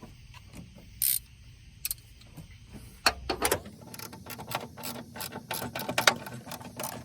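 Socket ratchet wrench clicking rapidly as it tightens a seatbelt anchor bolt, starting about three seconds in, after a short hiss about a second in.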